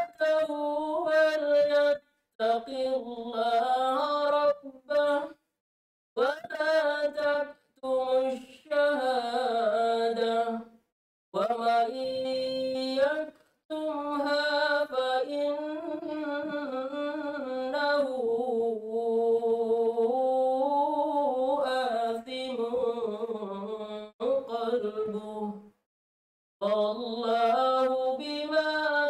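A woman chanting verses of the Qur'an in Arabic in the melodic tilawah style, in long wavering held notes broken by brief pauses for breath.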